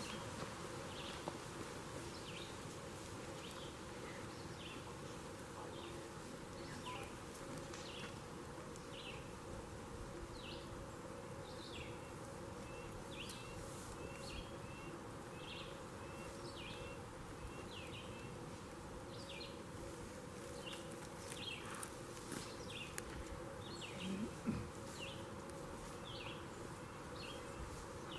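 Faint insect buzzing with a steady low hum, and short high chirps repeating a little more than once a second.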